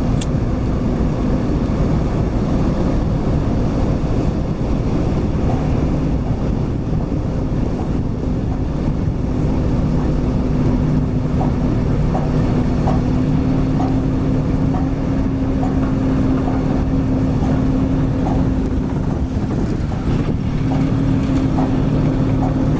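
Heavy construction machine's diesel engine running steadily at a constant pitch, with no breaks.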